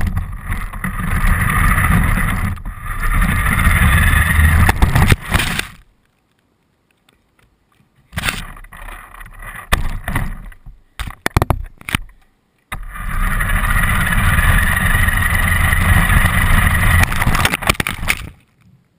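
Radio-controlled car running, heard through a camera mounted on it: a loud rush of motor and wheel noise that stops about five seconds in, a few short bursts, then another long run that cuts off near the end.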